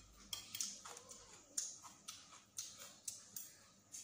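Metal fork and spoon clinking and scraping against a ceramic plate as rice and salad are mixed: a dozen or so light, uneven clicks.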